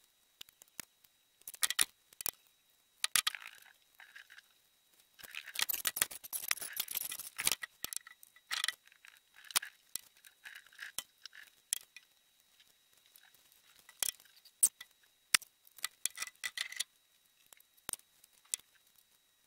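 Scattered clicks, scrapes and rustling from flexible wild-gathered branches being handled and bent, with a longer stretch of dense rustling about five to seven seconds in.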